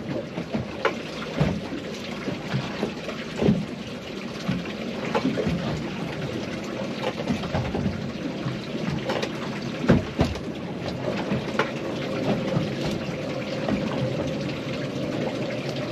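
Small waves slapping and splashing irregularly against the side of a drifting boat, over a steady rush of wind and water. A faint steady hum comes in about eleven seconds in.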